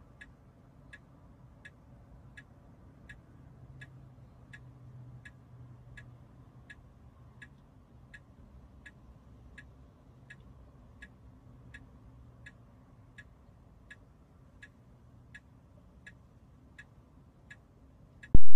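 A car's turn-signal indicator clicking steadily, about one and a half clicks a second, over a faint low hum. Near the end it is cut off by a sudden loud sound.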